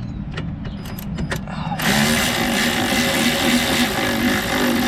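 A few light metallic clicks as a brake caliper bolt is threaded in by hand. About two seconds in, a loud, steady rushing mechanical noise with a low wavering hum starts suddenly.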